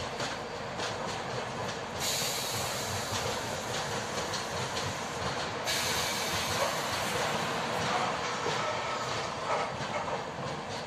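Passenger train running through a station: steady rumble of wheels on the track, with a high hiss that comes in about two seconds in and grows brighter about halfway through.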